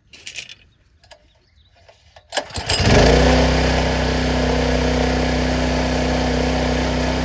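Small gasoline engine on a primed water pump being pull-started: a few rattles, a pull on the recoil cord, and the engine catches a little under three seconds in, then runs steadily.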